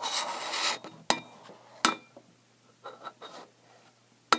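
Handling noise: a short rustle, then a few separate sharp clinks and knocks of hard objects being moved and set down.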